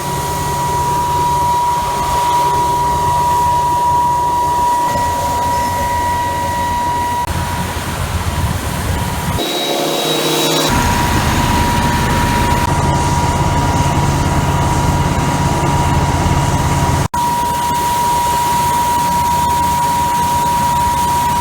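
Grain vac running: a loud, steady blower whine over engine rumble as it sucks soybeans out of a semi trailer's hopper. The sound changes briefly near the middle and drops out for an instant later on.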